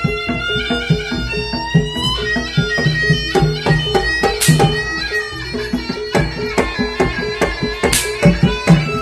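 Live jaranan (kuda kepang) music: a reedy wind instrument, the slompret, playing a held, wavering melody over steady drum strokes and sharp struck percussion.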